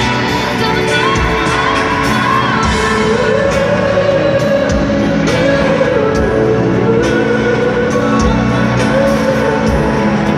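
Live concert music with singing, loud and steady, heard from within the audience in a large arena.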